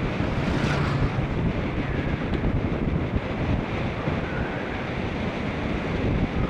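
Steady rushing wind buffeting the microphone of a camera on a bicycle being ridden at speed.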